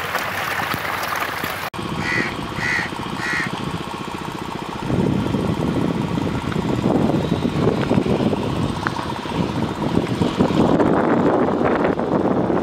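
A packed mass of catfish thrashing and splashing, which cuts off sharply under two seconds in. Then comes a small engine running with a fast, even chug, louder from about five seconds in. Three short chirps sound about two to three seconds in.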